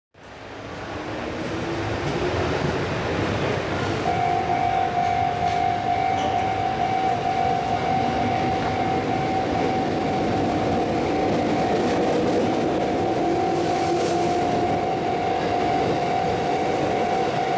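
A railway level-crossing alarm sounding steadily, starting about four seconds in, over the continuous rumble of a train on the rails.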